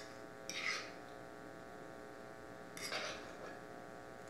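A metal utensil scraping sautéed onions out of a nonstick frying pan, two short scrapes, about half a second in and again near three seconds in. A steady electrical hum runs underneath.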